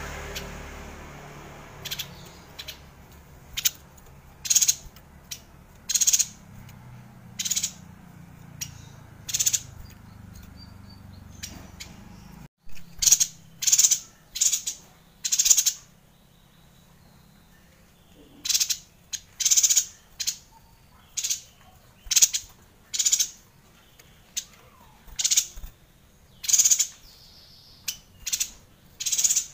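Caged yuhina giving short, high, sharp chirps, one every second or so, sometimes several in quick succession.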